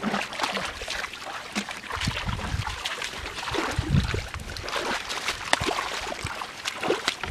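Bare feet wading through shallow muddy floodwater: irregular sloshing and squelching steps with scattered splashes, a few heavier thuds of feet plunging into the mud.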